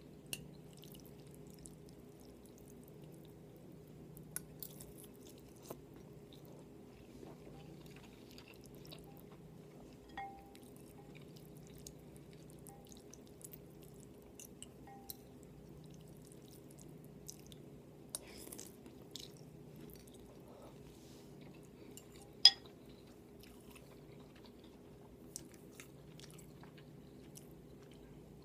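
Close-miked eating: soft chewing and mouth sounds with scattered small clicks, and a few short ringing clinks, the loudest about two-thirds of the way in, over a steady low hum.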